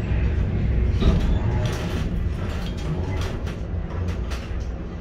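Container gantry crane lowering a container on its spreader: a steady low machinery rumble with irregular clicks and rattles over it.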